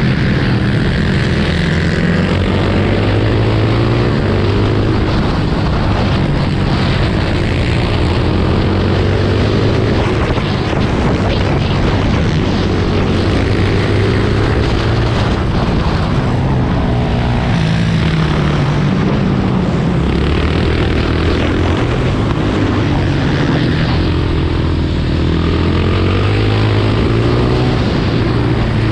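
Racing quad's engine heard onboard at full race pace, its pitch repeatedly climbing as it accelerates and dropping off into corners.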